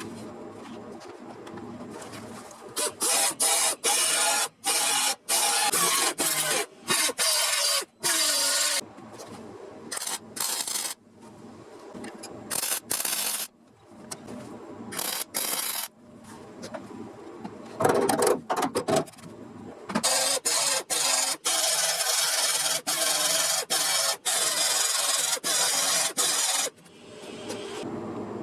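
Abrasive scraping on a car's steel body panel, taking off rust. It comes in many short stretches that start and stop abruptly.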